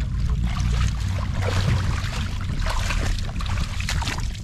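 Legs wading through shallow, muddy water, sloshing and splashing irregularly with each step, over a steady low rumble.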